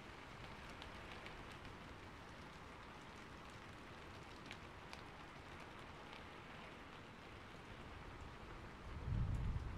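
Steady rain falling: an even hiss with scattered faint drop ticks. Near the end a deep low rumble swells up, the loudest sound.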